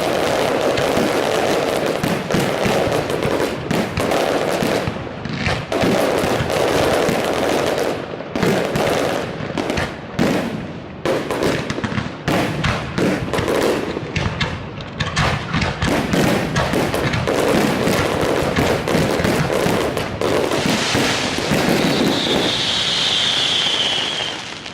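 Fireworks display in a dense, rapid barrage of bangs and crackling bursts, one explosion after another with no pause, ending with a high falling whistle.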